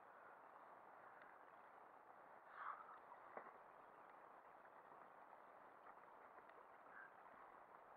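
Near silence: a faint steady hiss, with a short, slightly louder sound about two and a half seconds in and a few faint clicks.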